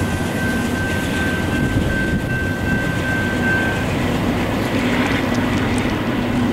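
BNSF double-stack freight train rolling away down the track, a steady rumble of wheels on rail. A thin, steady squeal runs over it for the first few seconds and stops about four seconds in.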